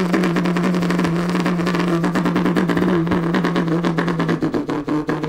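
Two Hudora kick scooters rolling along a carpeted corridor: a steady, even-pitched hum with a fast, continuous rattle of the wheels and decks.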